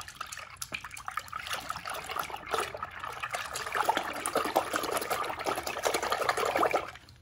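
A hand sloshing and splashing foamy water in a plastic tub while swishing a small toy car through it. The splashing gets louder in the second half and stops just before the end.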